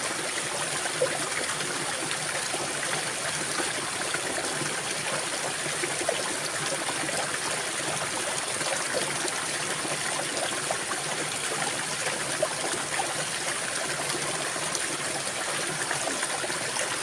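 Small stream running and trickling steadily, with a thin steady high tone above the water noise.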